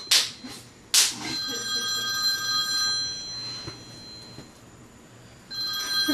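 A smartphone plays an old-fashioned telephone-bell ringtone. One ring starts about a second in and fades over a couple of seconds, and another ring starts near the end. Two sharp cracks come at the start and just before the first ring.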